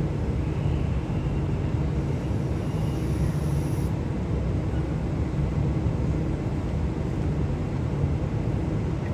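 Steady low hum and rumble of a Sydney Trains Waratah electric train standing at the platform, with no rise or fall in pitch.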